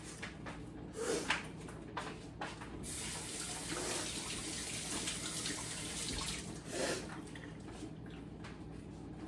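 Kitchen sink faucet running, water splashing into the sink as hands are rinsed under it; it comes on about three seconds in and stops after about three seconds. A few short knocks come before and after it.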